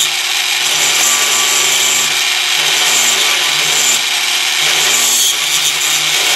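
Dremel rotary tool running steadily while its bit grinds away excess solder on a metal model part.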